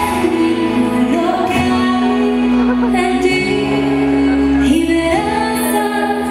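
Song played over the sound system, a woman's voice singing long held notes over a full backing.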